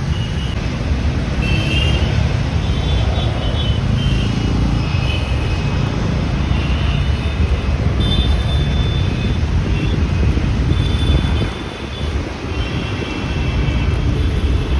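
Airbus A319 jet engines at takeoff power: a loud, steady deep rumble with a high whine over it, dipping briefly about twelve seconds in.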